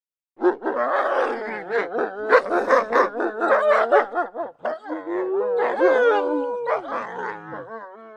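A wolf pack calling together: several overlapping wavering howls and whines with sharp yips and barks mixed in. It starts abruptly about half a second in, and near the end a single wavering howl trails off.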